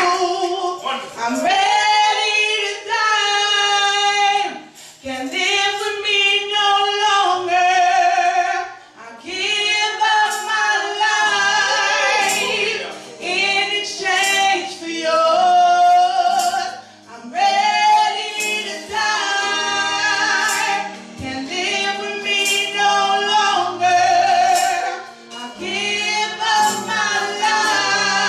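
A woman sings a slow gospel worship song solo into a handheld microphone, amplified through the church PA, in long held phrases with short breaths between them. Low sustained accompaniment notes come in underneath about nine seconds in.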